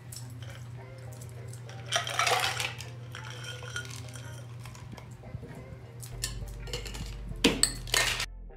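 Ice cubes poured from a glass into a stainless-steel cocktail shaker tin, rattling in about two seconds in, followed by lighter clinking and two sharp metallic knocks near the end as the shaker is closed up.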